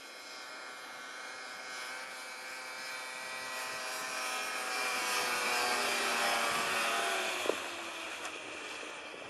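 Snowmobile engine running at speed as the machine approaches, passes close by and moves away. The engine note grows louder to a peak a little past halfway, then drops in pitch and fades.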